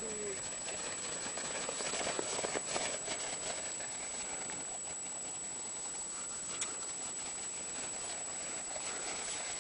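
Paws and footsteps crunching in snow as dogs run, the scattered steps loudest about two to three seconds in, over a steady hiss and a thin high whine.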